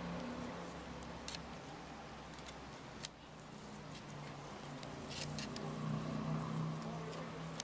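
A kaka pecking at food scraps on a wooden feeding platform: a few sharp taps of beak and feet on the boards, with a cluster of them about five seconds in, over a steady low hum.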